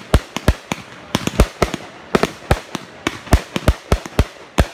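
Aerial fireworks going off in a rapid, irregular string of sharp bangs, several a second.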